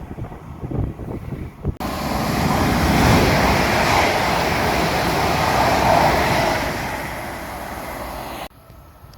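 A train passing along the line: a low rumble of wheels, then a loud rushing noise with wind buffeting the microphone, which cuts off suddenly near the end.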